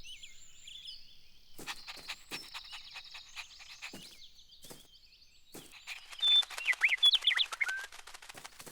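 Small birds chirping and trilling in a layered birdsong ambience, with a louder spell of quick up-and-down chirps from about six to eight seconds in.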